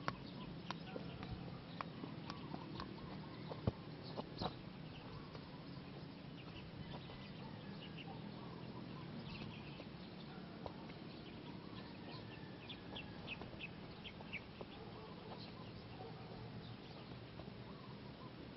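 A soccer ball being juggled and kicked on grass: a few sharp thuds in the first few seconds, then scattered light taps, over a steady low background noise. Birds chirp in a run of short calls in the second half.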